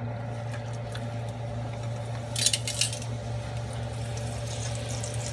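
Corn tortilla frying in hot oil in a stainless steel skillet, a steady sizzle, with a short metallic clatter of tongs against the pan about two and a half seconds in.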